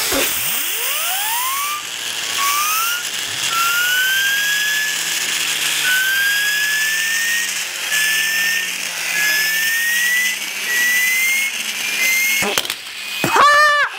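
Tornado blow-powered toy cars being blown into through the turbo: rushing breath and a whine from the spinning turbo that climbs slowly in pitch, broken by short gaps for breath. A brief wavering squeal near the end is the loudest moment.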